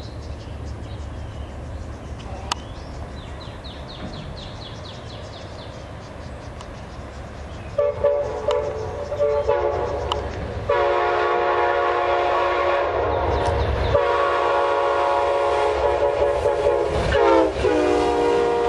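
Amtrak passenger train's locomotive horn on approach: after a low steady rumble, a few broken blasts begin about eight seconds in, followed by long blasts. Near the end the horn dips in pitch as the locomotive passes.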